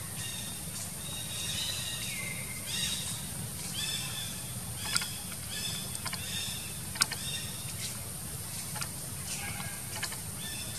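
Short, high-pitched animal calls, some falling in pitch, repeat throughout over a steady high hiss. Two sharp clicks come about five and seven seconds in.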